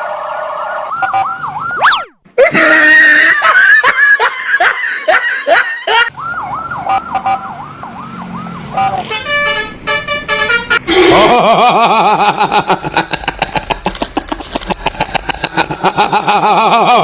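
Basuri 'telolet' multi-tone bus air horns playing rapid warbling tunes that change pattern several times, with a sharp rising sweep about two seconds in.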